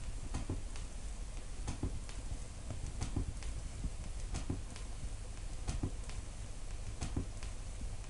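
Vinyl record surface noise played through loudspeakers, with the stylus riding the run-out groove after the music has ended. Scattered clicks and crackle come a couple of times a second over a low hum and faint hiss.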